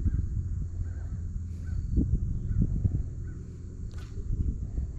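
Several short, faint bird calls, in the manner of crows cawing, at irregular intervals over a steady low rumble.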